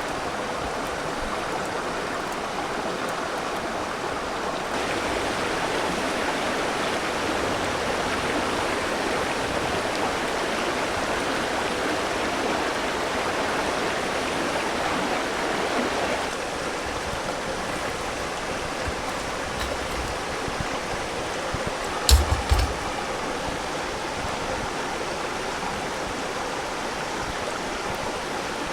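A river's water flowing in a steady rush, with a brief cluster of knocks about three-quarters of the way through.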